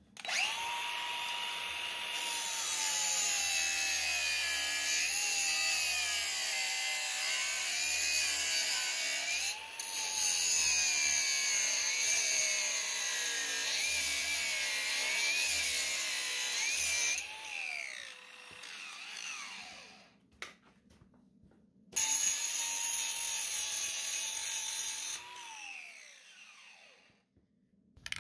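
DeWalt angle grinder biting into steel. Its whine sags and recovers in pitch as the wheel loads up, then winds down about seventeen seconds in. After a short pause it runs again for a few seconds and winds down once more.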